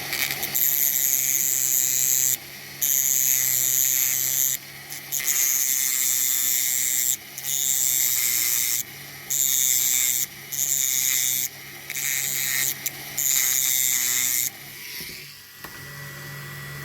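A small high-speed rotary tool grinding metal at the wheel hub of a diecast toy, in about eight high-pitched bursts of one to two seconds each with short pauses between, to free the wheel.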